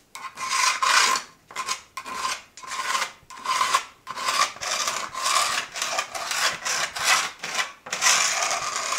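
A line being drawn along a long aluminium level on plywood subflooring: a run of short scratchy strokes, nearly two a second.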